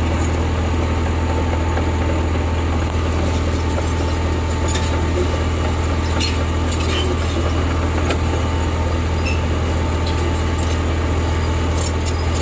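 Heavy construction machine's diesel engine running at a steady idle, a deep even hum, with faint light clicks and rattles over it.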